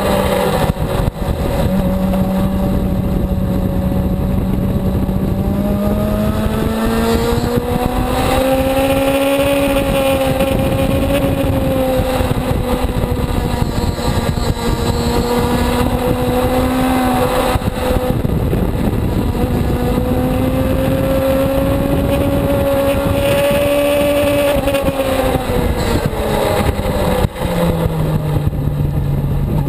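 Suzuki GSX-R750 inline-four engine running hard at high, fairly steady revs, its pitch climbing slowly with a few brief breaks, then falling near the end as the bike slows for a corner before picking up again. Wind rushes over the bike-mounted camera throughout.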